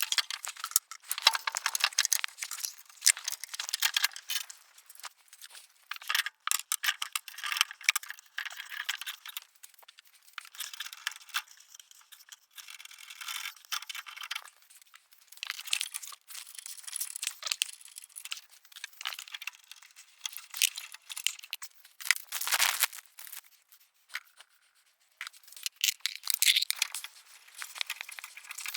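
Metal clinking and rattling in irregular bursts with short pauses: a cat-delete exhaust pipe, its metal gaskets and nuts and bolts being handled and fitted into place, not yet tightened.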